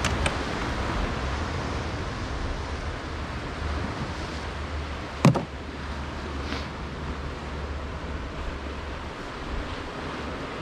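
Steady rush of sea surf on a rocky shore, with a few short sharp clicks from tackle being handled at an open tackle box, the loudest about five seconds in.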